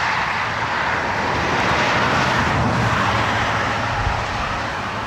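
Steady rush of river water running over rapids.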